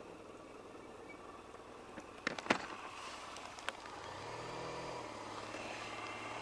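A few sharp clicks about two seconds in, then a motor vehicle's engine hum that rises slowly in level over the second half.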